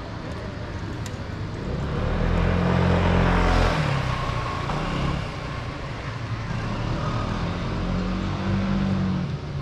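Motor vehicles passing: one car's engine and tyre noise swells and fades, loudest about three and a half seconds in, and another vehicle passes near the end over steady traffic noise.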